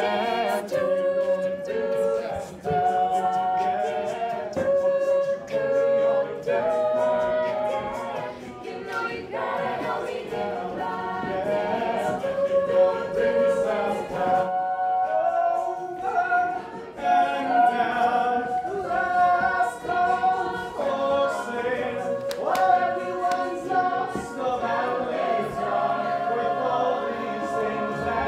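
Vocal music: a choir singing long held notes, with a regular beat underneath.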